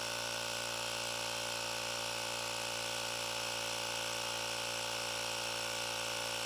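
Ryobi 18V cordless handheld high-pressure inflator running steadily with its trigger held, its small piston compressor pumping air into an underinflated car tyre.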